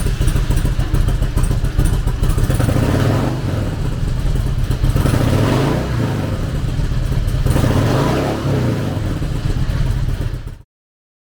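2001 Harley-Davidson Switchblade's 88 cubic inch V-twin with a Stage 1 intake, freshly started, running with a few revs between stretches of idle. It stops abruptly near the end.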